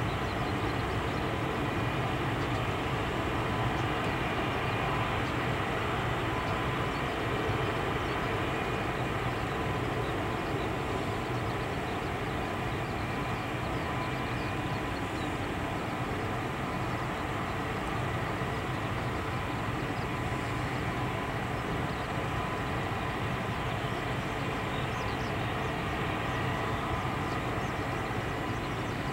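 Four turboprop engines of a P-3C Orion running steadily on the ground: a continuous low drone with a steady high whine over it.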